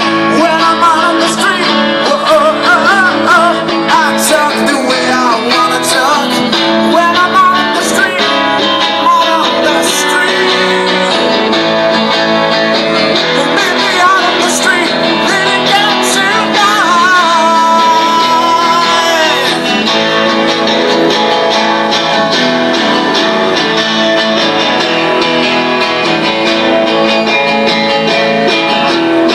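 Live acoustic performance: two guitars strummed with a singer's voice over them; the singing stops about two-thirds of the way through and the guitars play on.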